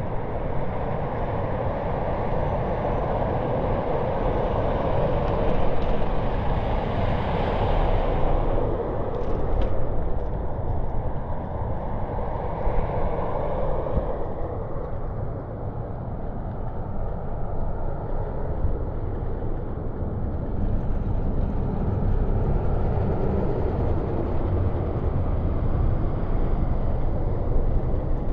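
City street traffic noise over a steady low rumble, with a vehicle passing about five to nine seconds in.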